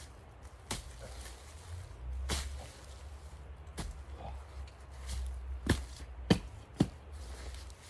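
A square-point steel shovel being driven into leaf-covered turf and soil and prying it up, with a series of sharp scraping strikes, the loudest three coming quickly one after another near the end.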